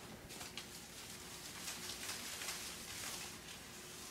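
Faint rustling and soft scuffing of things being moved by hand, in many short irregular bits.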